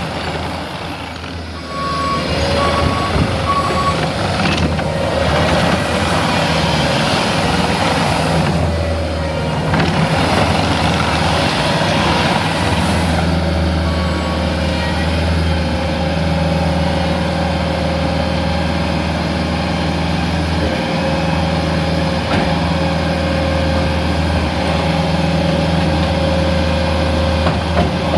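Bobcat T740 skid steer's four-cylinder turbo-diesel engine running steadily. A few short backup-alarm beeps sound about two to four seconds in, and once more near halfway.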